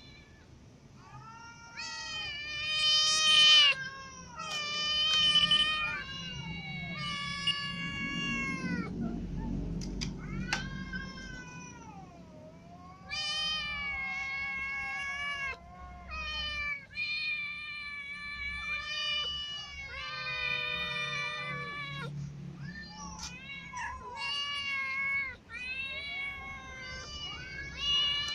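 Cats, among them a black-and-white kitten, meowing over and over: a string of long, high meows, each a second or two long, one after another with short breaks.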